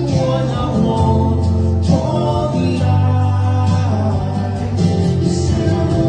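Music with a steady, held bass line and pitched instruments, with sharp high accents recurring every second or so.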